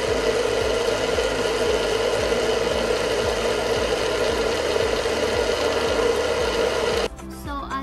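Countertop blender motor running steadily, churning a thick frozen mix of açaí, berries and banana; it cuts off suddenly about seven seconds in.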